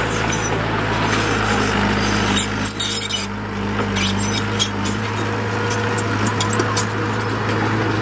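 Diesel engine of a dump truck or mini bulldozer running steadily, with a cluster of short clanks between about two and a half and five seconds in.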